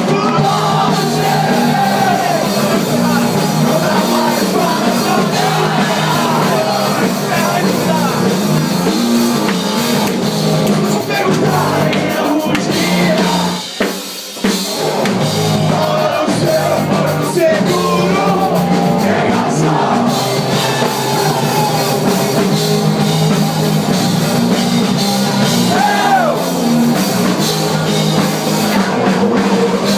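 Hardcore rock band playing live: drum kit, guitars and vocals, with a brief break in the music about fourteen seconds in.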